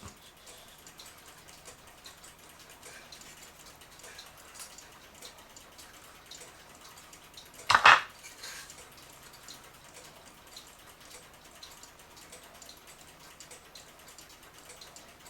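Quiet handling of clock case parts on a workbench: faint scattered taps and clicks, with one sharp clack about eight seconds in as a piece is knocked or set down.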